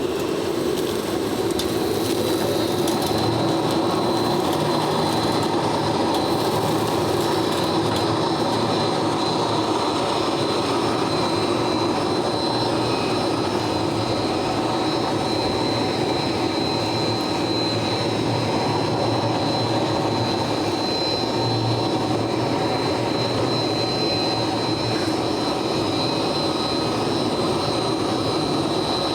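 Terrco 2000 four-headed diamond concrete floor grinder running steadily together with its dust-extraction vacuum: a continuous machine drone with a steady high whine over it.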